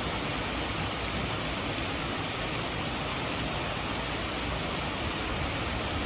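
Small rock waterfall pouring into a pond: a steady rush of falling, splashing water.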